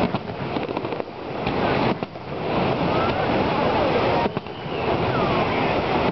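Fireworks going off, with sharp bangs about two seconds apart, over a steady rushing noise of falling water and scattered crowd voices.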